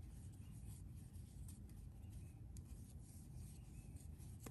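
Faint rubbing and light ticks of yarn sliding over a plastic Prym ergonomic crochet hook as stitches are worked, over a low steady hum.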